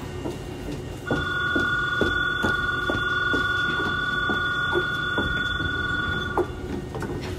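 Electric station departure bell ringing steadily for about five seconds, starting about a second in and cutting off near the end, over the low hum of a train stopped at the platform.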